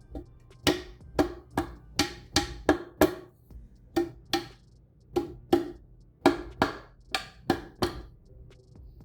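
Hammer tapping a new dust wiper seal into a Fox 34 fork lower leg, about seventeen sharp taps in quick runs worked around the seal to drive it in flush. Each tap has a short ringing tone.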